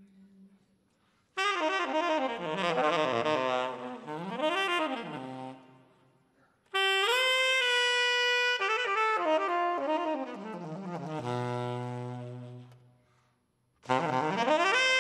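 Unaccompanied tenor saxophone playing jazz phrases with pauses between them. First comes a fast run of rising and falling notes, then a phrase of held notes stepping down to a long low note, and another phrase starts near the end.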